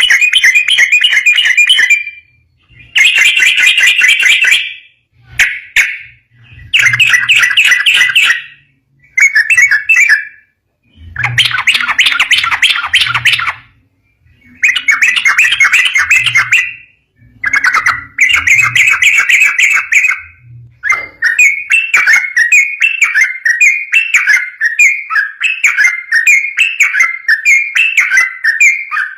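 Yellow-vented bulbul (trucukan) singing loudly. It gives song phrases of one to two seconds with short pauses between them, then, about two-thirds of the way through, breaks into an unbroken, fast run of repeated notes: the long 'ropel' song.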